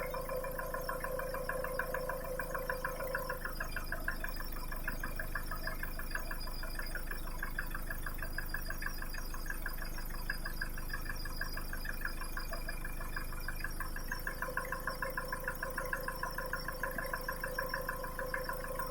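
Mitsubishi 4D56 turbo diesel engine running at idle with a fast, even knock, during a cylinder-by-cylinder injector cut-out test to find the knocking cylinder. The tone of the running changes a few seconds in and returns near the end.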